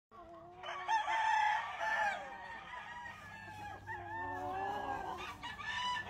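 Several chickens calling over one another: roosters crowing in long wavering calls and hens clucking.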